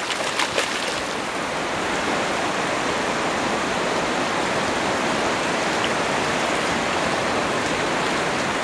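Steady hiss of shallow sea water washing over the beach, with sharp splashes in the first second as a large fish thrashes in the shallows.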